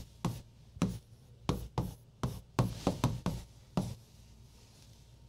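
Stylus tapping and knocking against a large touchscreen display while words are handwritten on it: about ten sharp, uneven taps over roughly four seconds, then they stop.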